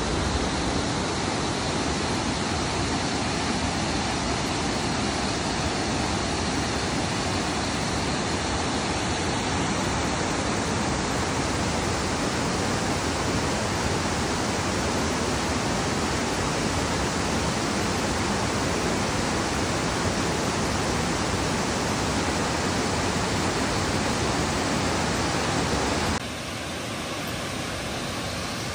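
Steady rush of fast-flowing river water. It drops suddenly to a quieter rush near the end.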